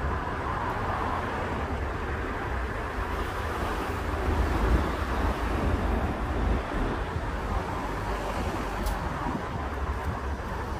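Car driving slowly through town traffic: a steady low rumble of engine and tyre noise, with some wind on the microphone.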